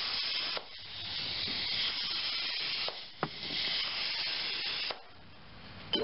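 Compressed air hissing through an air chuck into a 15x6.00-6 lawn tractor tire, inflating it to seat the bead. It comes in three spurts with short breaks, with two brief clicks about three seconds in, and stops about five seconds in.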